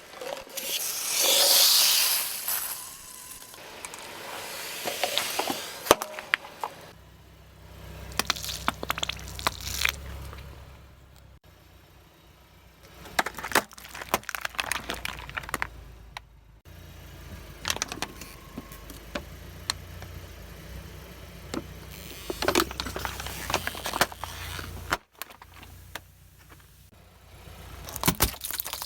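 A car tyre rolling over and crushing objects: a run of cracks, crunches and crackles over the low rumble of the car's engine, in several separate takes. A loud hissing rush in the first few seconds.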